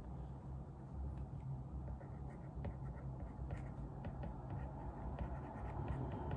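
Pen writing on paper: faint scratches and light ticks, over a steady low hum.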